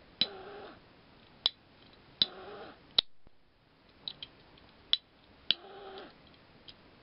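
A cat meowing three times, short calls falling in pitch, with several sharp clicks between them.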